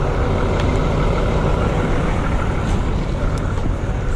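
Heavy diesel recovery truck engine running steadily, a low rumble with a few faint clicks over it.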